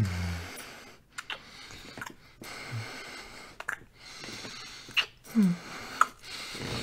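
Close-miked kissing sounds: a series of short wet lip smacks, with breathing and a few brief low hums in between.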